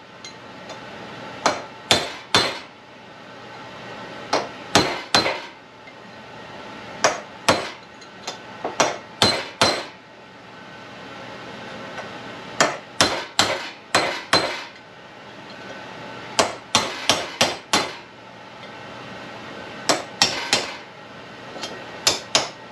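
Hammer striking a steel drift to knock a bearing race out of a mower spindle's cast housing: sharp metal-on-metal blows in quick runs of three to six, with pauses of a second or two between runs, each blow ringing briefly.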